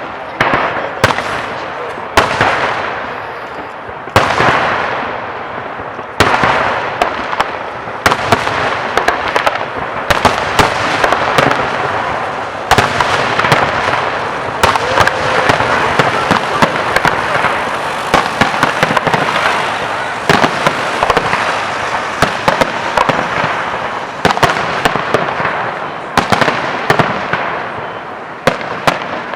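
Fireworks display: aerial shells bursting one after another, sharp bangs with echoing tails, and a dense crackle of bursts through the middle stretch.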